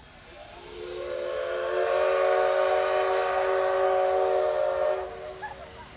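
Steam locomotive's whistle blown in one long blast, swelling in over the first second or so, holding a steady chord-like tone, then cutting off about five seconds in.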